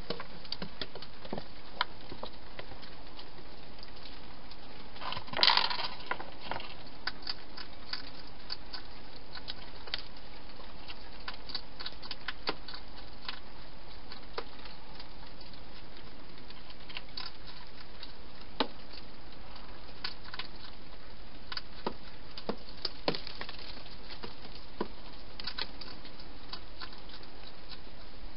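Wild hedgehog eating from bowls inside a plastic feeding box, heard as scattered small clicks and munching throughout, with a louder scuffle about five seconds in as it pushes into the box. A steady hiss lies under it all.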